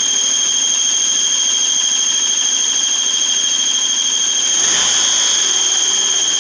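Steady high-pitched whistle from the 1.6-litre engine of a Citroen C2, heard as one piercing tone with a fainter higher overtone. It grows slightly louder about four and a half seconds in, with a low rumble joining it. It is a persistent whistle that shows up both hot and cold, and that WD-40 did not cure.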